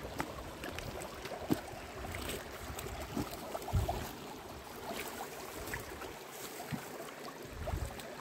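Shallow stream running over rocks, with footsteps on stones, brushing through shrubs and a few dull thumps.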